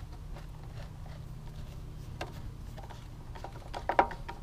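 Screwdriver turning the screw of a plastic air filter cover on a Briggs & Stratton lawnmower engine: scattered light clicks, with a quick run of sharper clicks near the end, over a steady low background hum.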